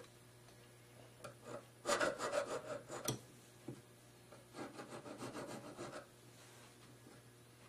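Fine barrette needle file (a number 4 cut) rasping across a ring shank to knock off the raised solder at the sizing seam. Two short runs of quick strokes, about two seconds in and again past four seconds.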